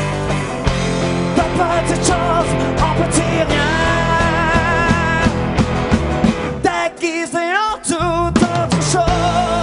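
Live rock band playing an instrumental passage with electric and acoustic guitars, bass and drums; a held, wavering lead note sounds in the middle, and about seven seconds in the bass and drums drop out briefly under bending lead lines before the full band returns.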